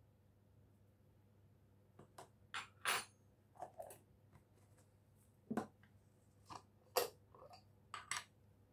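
Scattered light clicks, taps and knocks of kitchen containers being handled on a worktop, starting about two seconds in: a plastic dried-herb pot being closed and put down, and a glass jar of chopped garlic being picked up.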